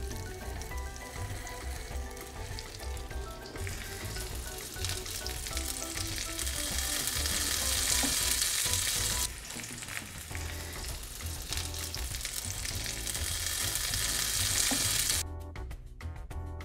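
A filled flour-tortilla taco frying in hot oil in a pan, sizzling loudly, over background music. The sizzle swells from about four seconds in, dips briefly midway, and stops near the end, leaving only the music.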